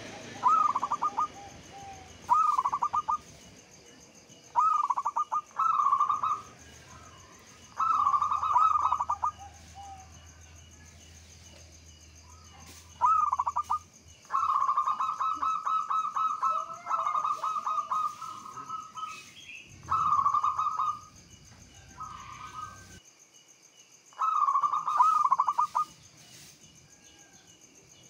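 Zebra dove (perkutut) cooing: about nine short phrases of quick staccato coos with pauses between them, and one long run of rapid rolling notes about halfway through.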